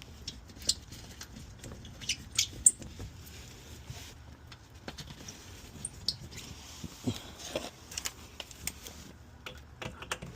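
Irregular small clicks, taps and short scrapes of a plastic underbody cover and its Torx screws being handled and fitted back into place, with a sharper click about two and a half seconds in.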